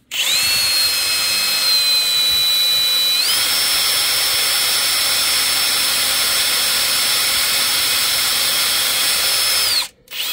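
Power drill running under load, a 1/8-inch bit drilling into a hard broken bolt in a cast iron engine block through a centering guide bolt. The motor whine steps up in pitch about three seconds in, holds steady, and stops near the end.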